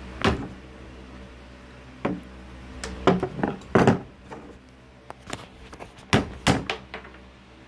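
Hammer and pry tool knocking at a riveted cast-metal latch on a wooden trunk lid: about seven sharp, irregular knocks with metal clinks, two close together near the end. The rivet is stubborn because a washer sits under it.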